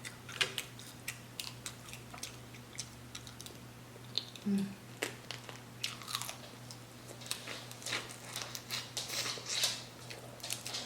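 Close-miked eating in a seafood boil mukbang: wet chewing and crunching with many irregular smacks and clicks.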